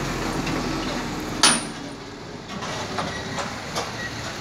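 A loaded goods truck's diesel engine running at low speed as the truck works along the soft road edge. About a second and a half in there is one sharp, loud burst of noise, and after it the engine sound is quieter, with a few faint clicks.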